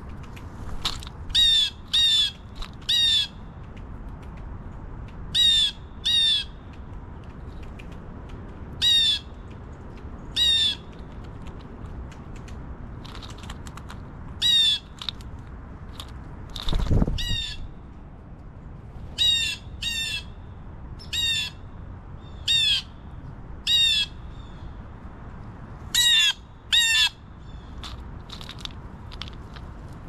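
Blue jay calling over and over: loud, short down-slurred calls given in twos and threes. A steady low rumble runs underneath, with one brief low whoosh about halfway through.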